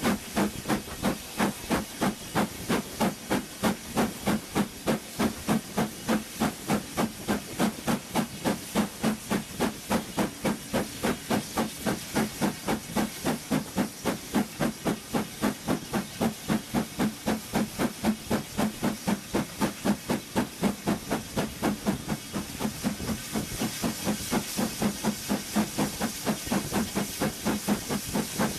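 LMS Black 5 steam locomotive 45428, a two-cylinder 4-6-0, under steam with a steady exhaust beat of about three chuffs a second over a continuous hiss of steam, heard close from the train behind it. Towards the end the beats soften under a louder, higher hiss.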